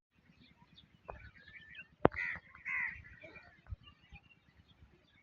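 A bird gives two harsh, crow-like calls about two seconds in, just after a sharp click. Faint chirping from small birds sounds around them.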